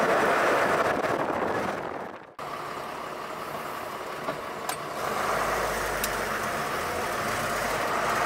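Iveco Magirus 90-16 truck on the move: road and wind noise that fades out, then the diesel engine running inside the cab, its low rumble growing about five seconds in.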